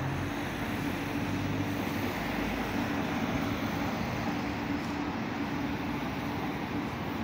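Steady low mechanical hum over a constant rushing background noise.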